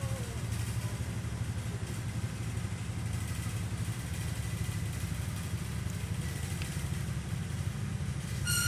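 A motor running steadily with a low, fast-pulsing hum. Near the end a kitten gives one short, high mew.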